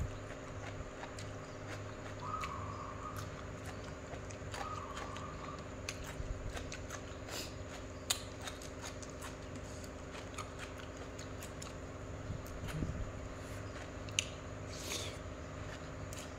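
Mouth sounds of eating a crisp cucumber salad with rice noodles: chewing with small wet clicks and smacks, and a short slurp of noodles near the end. A steady electric-fan hum runs underneath, and two short warbling chirps come a few seconds in.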